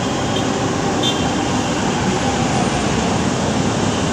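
Manila LRT Line 1 light rail train moving along the platform: a steady running rumble of wheels and traction gear, with a couple of faint clicks about a second in.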